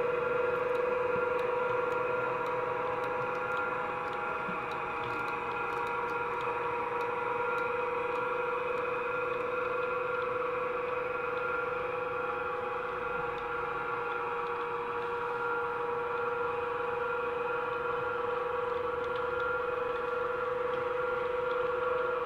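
Steady hum made of several held tones, the strongest mid-pitched, dipping slightly in level about four seconds in.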